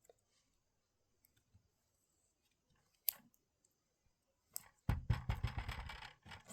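Thin plastic being handled, likely protective film or packaging: a sharp click about three seconds in, then a second or so of dense crackling near the end.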